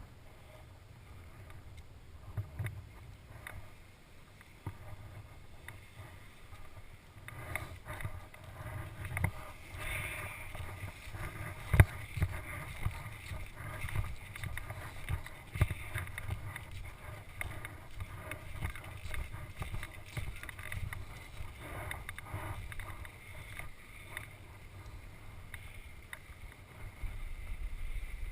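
Chatter from a helmet-mounted GoPro Hero HD camera while skiing: an uneven low rumble with scattered knocks and rattles from the vibrating mount, and one sharp knock about twelve seconds in.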